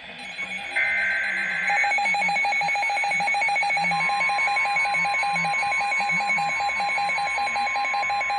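Emergency Alert System broadcast: a final short warbling burst of the SAME digital header about a second in, then a rapidly pulsing two-tone alert signal, joined by a steady higher tone near the middle, announcing a severe thunderstorm warning.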